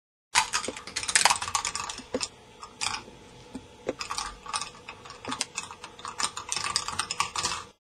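K'nex ball machine running: plastic balls and parts clicking and clattering irregularly along the tracks and lifts.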